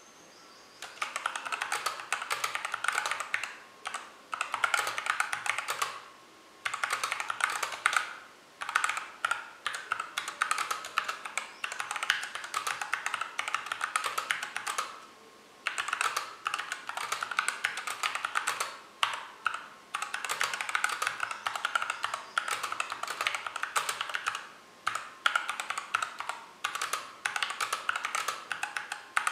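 Fast typing on a Hexgears GK707 mechanical keyboard with Everglide Crystal Violet switches and thin double-shot ABS OEM-profile keycaps: a dense run of key clacks starting about a second in, broken by brief pauses every few seconds.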